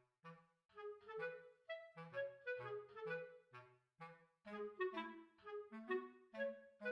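Background music: a bouncy tune of short, quick woodwind notes over a light bass line.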